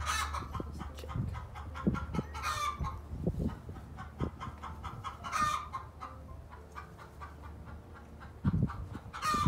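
Four loud bird calls a few seconds apart, over soft taps and rustling of hands working wire connectors.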